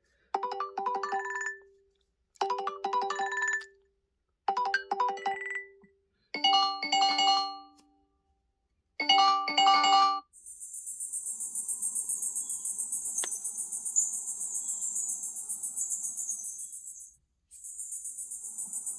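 Google Pixel 7a ringtones playing. First a short bell-like melody repeats five times, about every two seconds. About ten seconds in, a different tone takes over: a sustained high, rapidly pulsing ring that stops briefly and then starts again.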